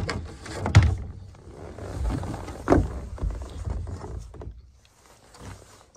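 Knocks and thumps against a plastic kayak and measuring board as a largemouth bass is handled and laid down to be measured, over a low rumble. The loudest thump comes about a second in and another just before three seconds; the noise dies away after about four and a half seconds.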